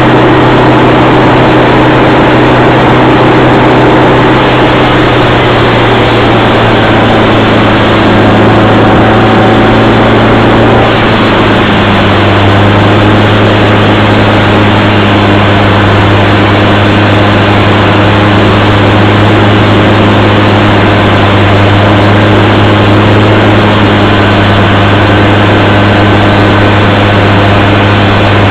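1921 American No. 2 circular sawmill running, with a loud, steady mechanical drone whose low hum drops slightly in pitch about eleven seconds in.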